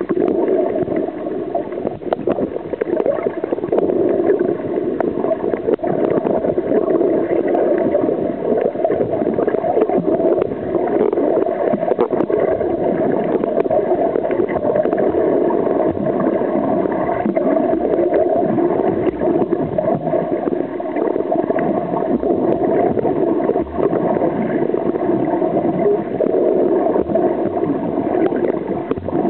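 Muffled underwater noise picked up by a submerged camera while snorkeling: a steady gurgling wash of water, with faint scattered clicks.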